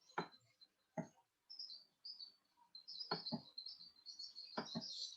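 Birds chirping faintly with short high-pitched chirps, over which come several sharp clicks, some in quick pairs.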